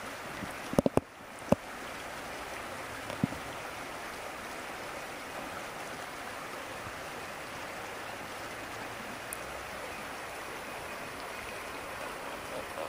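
A steady rushing noise, like flowing water, with a cluster of sharp knocks about a second in and one more at about three seconds.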